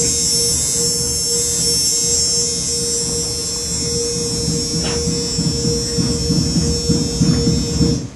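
Electronic music: a steady droning tone over a low pulsing rumble, with a bright hiss high up. It stops abruptly near the end.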